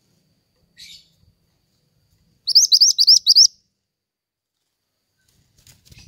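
Songbird the uploader calls burung mantenan calling: a faint short call about a second in, then a loud, rapid run of about six quick repeated high, slurred notes lasting about a second. A few faint clicks follow near the end.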